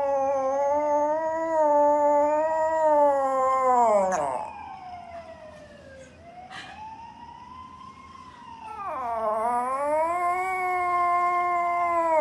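Small poodle howling: two long wavering howls, each drooping in pitch as it ends, with a fainter rising-and-falling howl between them.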